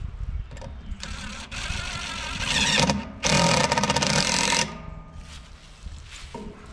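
DeWalt cordless driver whirring as it drives a lag screw through a steel ground-anchor bracket into a wooden post, in two runs with a short break, the second louder and stopping abruptly.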